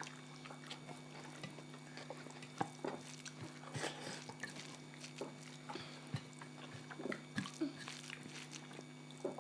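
Eating sounds: scattered light clicks and scrapes of cutlery and fingers on plates, with chewing, over a steady low hum.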